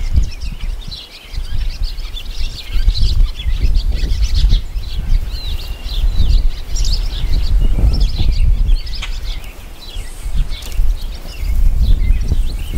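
Songbirds chirping and trilling throughout, over a loud, gusting low rumble of wind buffeting the microphone.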